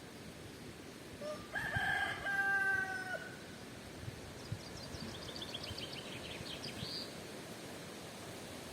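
A rooster crowing once, a call of about two seconds, over a steady hiss of wind. A few seconds later a small songbird sings a short, high, descending trill.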